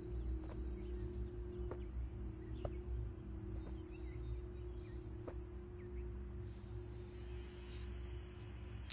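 Quiet outdoor ambience: a steady low rumble with faint, scattered bird chirps and a few light ticks, under a soft sustained musical drone.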